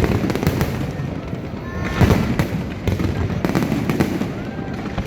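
Aerial fireworks going off: a rapid series of bangs and crackles, with one of the loudest bangs about two seconds in.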